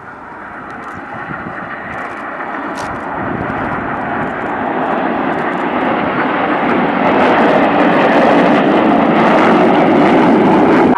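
Jet engines of a formation of Red Arrows BAE Hawk jets flying a display, a steady rush that swells louder and louder as the formation comes closer.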